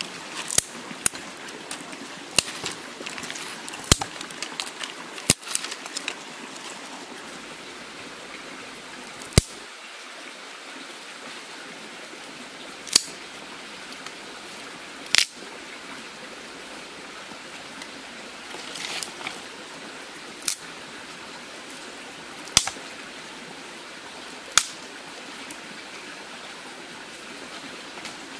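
Steady rushing of a nearby stream, with sharp single clicks and snaps every couple of seconds, more of them in the first few seconds.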